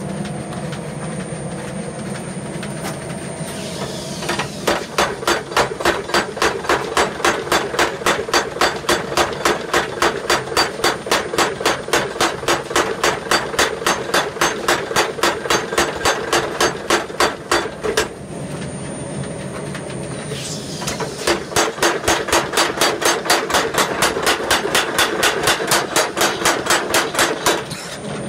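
Bradley power hammer working: a steady mechanical hum, then about four seconds in the ram starts striking in a fast, even run of about three blows a second. The blows stop for about two seconds with only the hum left, then start again in a second run.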